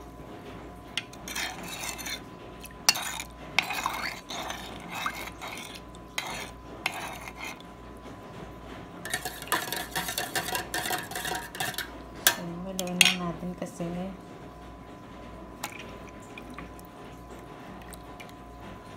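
Spoon stirring a thin soy-and-pineapple-juice marinade in a bowl, scraping and clinking against the bowl in irregular spells, then stopping about three-quarters of the way through.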